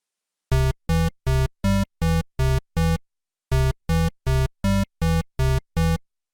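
Short synthesized music: one electronic note repeated about three times a second, seven times, a brief pause, then eight more times, with silence before and after.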